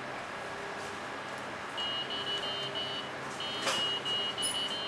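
Electronic buzzer in a 3D-printed prosthetic hand sounding a run of short, high beeps as the fingertip pressure sensors are pressed, each finger playing its own note. The beeps begin about two seconds in, come in two quick runs at slightly different pitches with a brief gap between them, and include a light click partway through.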